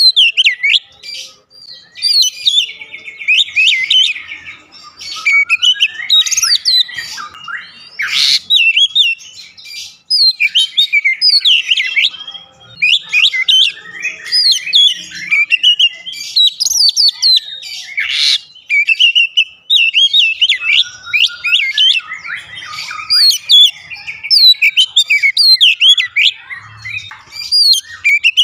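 Oriental magpie-robin singing a fast, varied song of whistled phrases, nearly without pause, with two short noisy notes about ten seconds apart.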